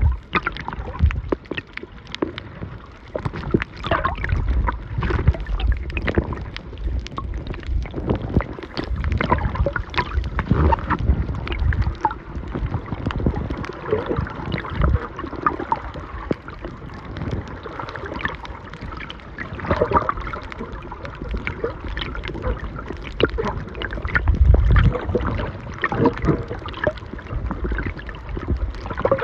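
Water heard through an underwater camera: muffled sloshing and gurgling with irregular crackles and knocks, and low rumbling swells.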